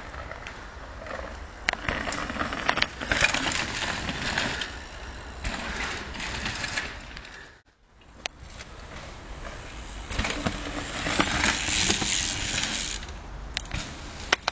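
Mountain bikes rolling down a wooded dirt track, tyres crunching over dry leaves and dirt, with sharp knocks and rattles from the bikes over roots and drops, over a low rumble of wind on the microphone. The sound breaks off briefly about halfway through.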